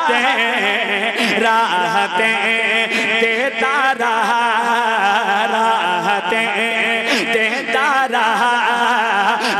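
Wordless, ornamented vocal melody of a naat recitation, the voice sliding and wavering in pitch, over a steady low drone.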